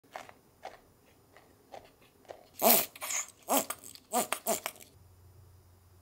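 Cornstarch powder being poured and handled: a few faint taps, then a run of about five loud, squeaky crunches a little over two seconds in.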